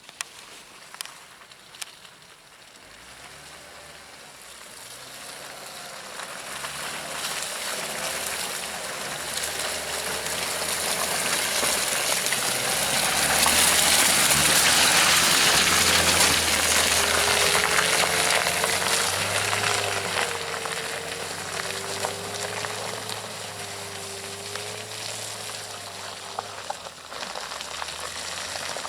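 Off-road SUV engine running as it drives through mud and water, with a rushing hiss of splashing and spray that swells to its loudest about halfway through and then eases off.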